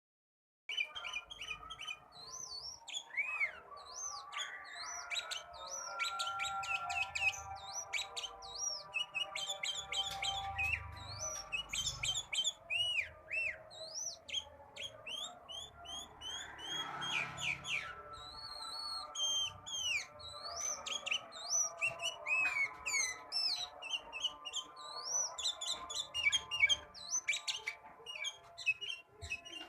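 A songbird singing continuously in a rapid, varied string of chirps, whistles and sweeping notes, as a 'gacor' bird does when in full song.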